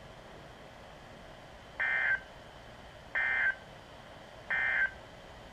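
Three short bursts of Emergency Alert System SAME digital data tones from a NOAA Weather Radio broadcast, each under half a second and a little over a second apart. Coming straight after the spoken flash flood warning, they are the end-of-message code that closes the alert.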